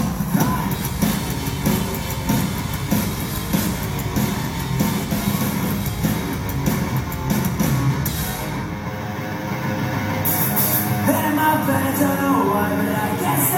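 Punk rock band playing live through a PA: distorted electric guitars, bass and a drum kit at full volume, with a lead voice singing in the last few seconds.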